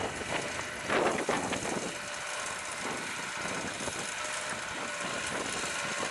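Case IH Puma 200 CVX tractor's diesel engine running under load, with a louder surge about a second in before it settles to a steady drone with a faint whine.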